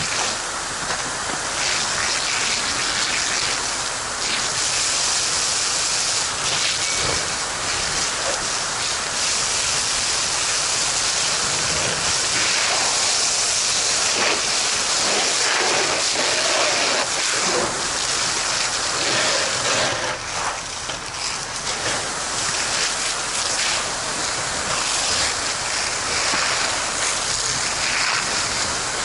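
Fire hose nozzle spraying a steady jet of water onto burning debris: a continuous rushing hiss.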